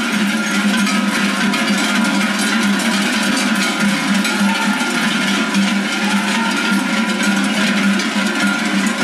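Cowbells on a herd of cattle walking along a road, many ringing at once in a dense, unbroken clanging.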